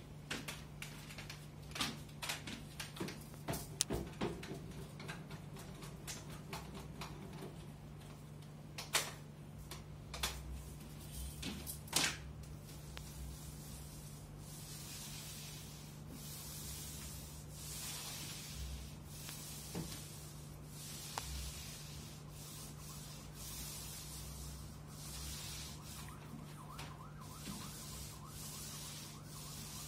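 Short-nap paint roller spreading emulsion paint on a smooth wall: a rasping swish with each stroke, repeating every second or two in the second half. Before the rolling settles in, a scatter of sharp knocks and clicks, and a steady low hum runs underneath throughout.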